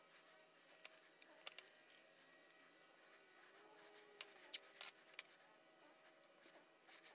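Faint clicks and rustles of masking tape being pressed and smoothed onto the thin metal hull of a tin toy boat, with one sharper click about four and a half seconds in.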